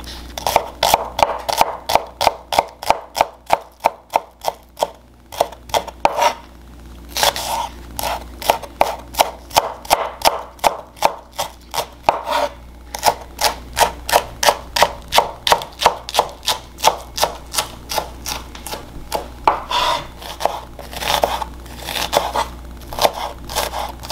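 Chef's knife chopping onion on a wooden cutting board: a long run of quick, even strikes, about three to four a second, broken by a couple of short pauses.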